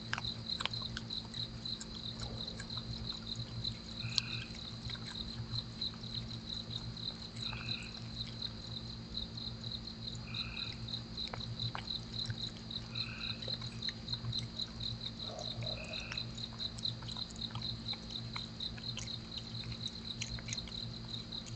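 Night chorus of insects, a high-pitched chirping that pulses evenly and never stops, with a frog giving a short call about every three seconds. A steady low hum runs underneath.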